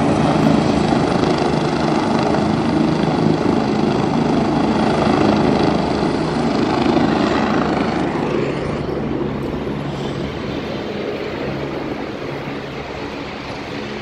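Hospital helicopter's rotor and turbine engine running loud and steady, with a low hum under the rotor noise, growing quieter over the second half.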